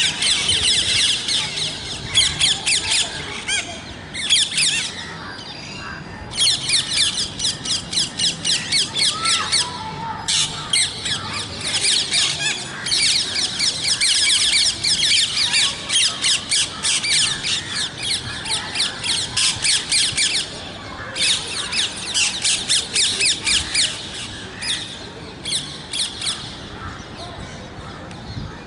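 Parrots squawking: rapid runs of sharp, high-pitched calls, several a second, broken by a few short pauses.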